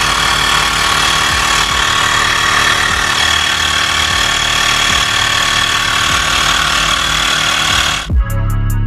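Xiaomi Mi rechargeable portable air compressor running steadily with a constant whine as it inflates a fully flat car tyre toward its 30 PSI preset. About eight seconds in it cuts off abruptly and music with a beat takes over.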